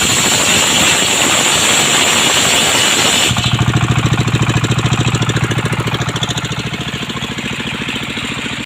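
Engine-driven circular saw rig running at speed with a high whine from the spinning blade; about three seconds in the whine drops out and the engine settles into a low, rapid chugging that slowly fades, as it is throttled back.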